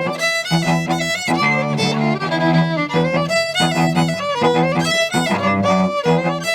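A fiddle playing a quick instrumental folk tune over a steady, rhythmic low chordal accompaniment.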